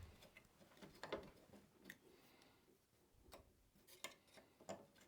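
Faint, irregular metallic clicks and taps of NP203 transfer case shifter parts being handled and fitted together, as a spring is worked over a spacer.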